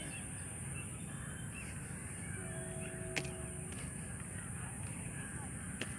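Steady outdoor background rumble, heard while moving along an open road bridge, with faint scattered bird calls. A steady two-note tone sounds for a little over a second just before the middle, and there is a single click about three seconds in.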